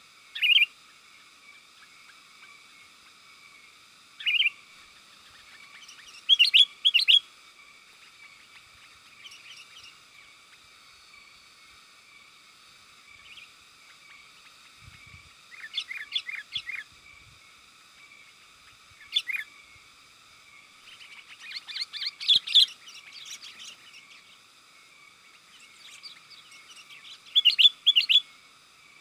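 Sooty-headed bulbul (kutilang) giving bursts of quick, bright chirping calls, a second or two each with pauses of several seconds between them. The chirps sit over a steady high hiss.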